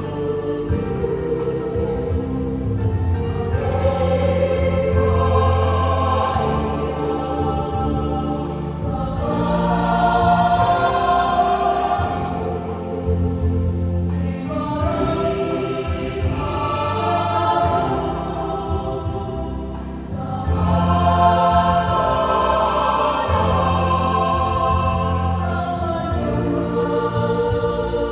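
Youth choir singing a hymn in several parts, with held chords swelling and easing phrase by phrase.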